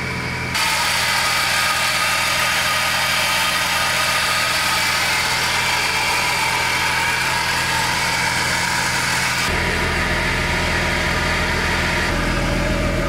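Vehicle engines idling steadily. The sound jumps to a louder, brighter engine noise about half a second in, and a deeper rumble takes over after about nine and a half seconds.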